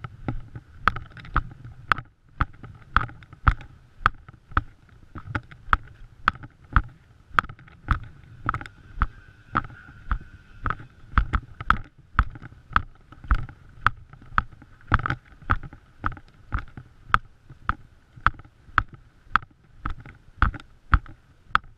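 Footsteps in wet mud and slush, a steady walking pace of about two and a half steps a second.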